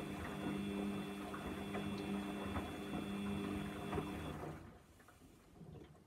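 Samsung front-loading washing machine tumbling a wet duvet: a steady motor hum with irregular soft thuds and sloshes from the load. About four and a half seconds in, the drum motor cuts out and only faint sounds remain.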